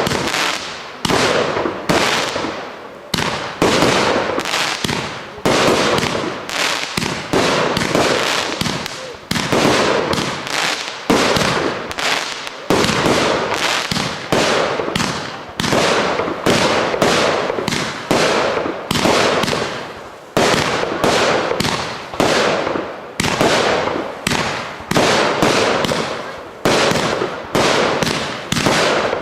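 Fireworks display: loud bangs going off in rapid succession, about one to two a second, each one fading away before the next.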